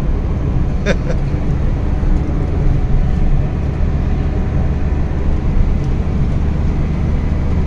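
Steady road noise inside a moving car's cabin: a low engine and drivetrain drone under the hiss of tyres on a wet road.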